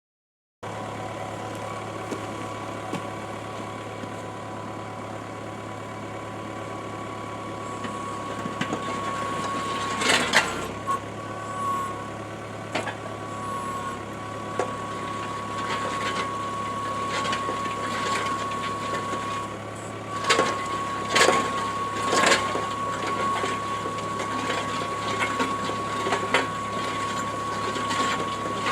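A 450 mm machine-driven earth auger drilling through a crust of blue rock into clay, the drive running steadily with a constant high whine. Sharp knocks and grinding as the auger bites the rock come about ten seconds in and several times around twenty seconds in.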